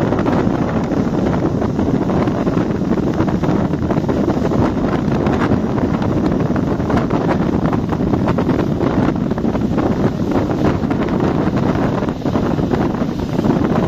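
Loud, steady wind noise buffeting the microphone aboard a moving passenger ferry, with the boat's running noise beneath it.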